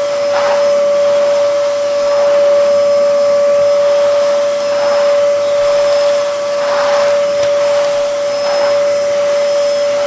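Vacuum cleaner running while vacuuming: a steady motor whine over the rush of air, with the suction noise swelling and easing every second or two.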